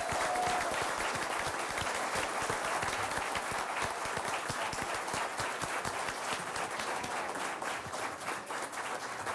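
Applause from a roomful of people, a dense patter of many hands clapping that gradually thins out and fades toward the end.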